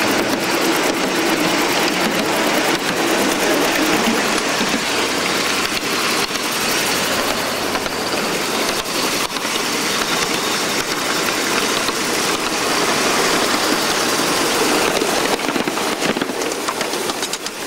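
Ridable live-steam Shay locomotive running along the track: a steady rushing hiss with fast, fine ticking throughout, the mix of its exhaust and running gear with wheels on the rails.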